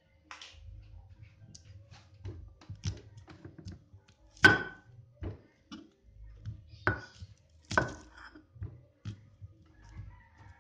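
Stone pestle (ulekan) pounding and grinding whole shallots, garlic and coriander seeds in a flat stone mortar (cobek). Irregular knocks come with a low grinding rub between them, and a few sharp stone-on-stone clacks stand out, the loudest about four seconds in.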